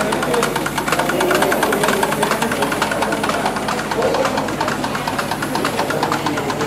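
A machine running with a fast, even clatter of ticks, several each second, steady throughout.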